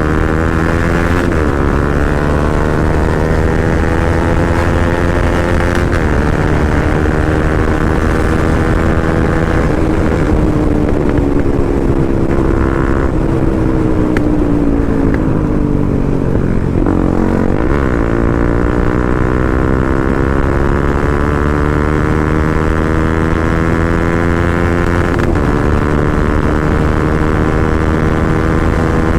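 Motorcycle engine running while riding. Its pitch climbs, drops briefly as if at gear changes, falls slowly around the middle as the bike slows, then picks up again.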